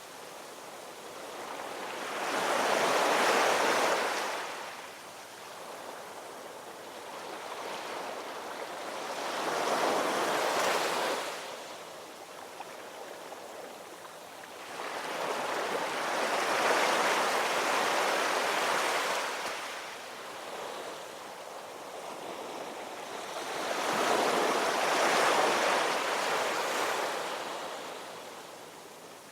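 Ocean waves breaking and washing in, swelling and falling back four times, about one surge every seven seconds.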